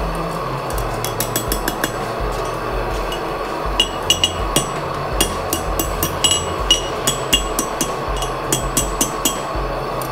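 Hand hammer striking hot steel flat stock on an anvil horn: a rapid, irregular run of blows with bright metallic clinks, sparse at first and thicker from about a second in, over a steady hum.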